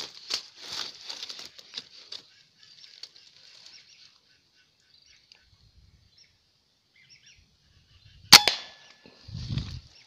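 A single sharp air-rifle shot about eight seconds in, the loudest sound, fired at a lesser whistling duck on the water.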